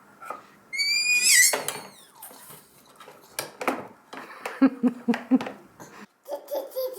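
A baby's brief high-pitched squeal about a second in, then scattered knocks and clatter, and a few short babbled syllables near the end.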